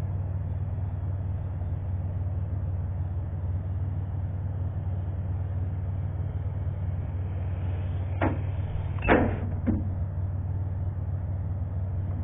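Sky Viper S1700 toy quadcopter's motors and propellers running with a steady low hum, with three short knocks about two-thirds of the way through, the middle one loudest.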